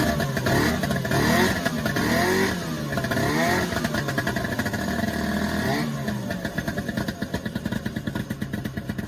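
Vintage snowmobile engine revving up and down in repeated blips, then settling into a steadier run from about six seconds in.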